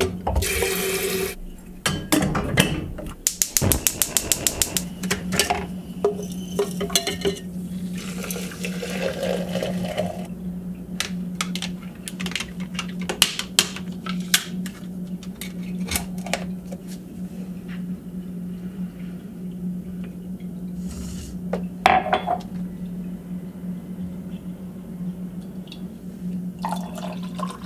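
Dishes and utensils clinking and knocking while French press coffee is made, with a fast run of about a dozen clicks about four seconds in, over a steady low hum.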